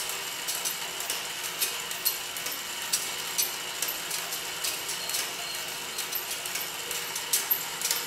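Toy Erector set electric motor and its gearbox running steadily with a whirr, with sharp irregular clicks from the gearing about once or twice a second.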